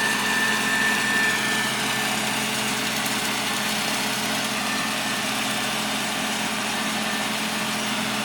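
An engine running steadily, with a constant hum and a faint high whine that fades out about two seconds in.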